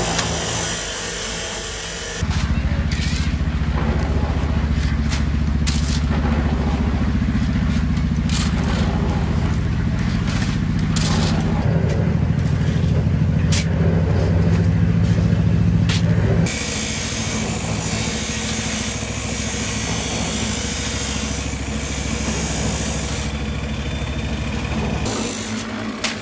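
Small concrete mixer running, its motor humming steadily as the drum turns a batch of sand and cement, with scattered short knocks and scrapes over the hum. The hum starts about two seconds in and changes tone about two-thirds of the way through.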